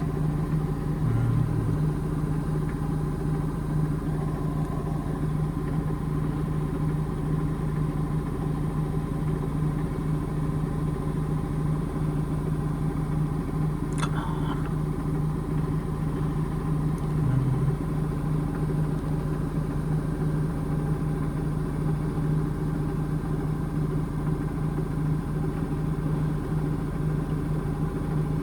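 Indesit IMA862 washing machine spinning at a steady speed, its motor and drum giving a steady hum throughout, with a single brief click about halfway.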